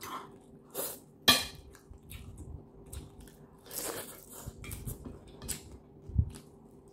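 Close-up eating sounds: a fork clicks sharply against a plate in the first second or so, then food is bitten and chewed with small wet clicks and smacks.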